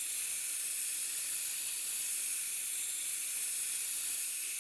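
Diamond plate dressing a spinning sharpening wheel back to a coarse 80-grit surface: a steady, even high-pitched grinding hiss.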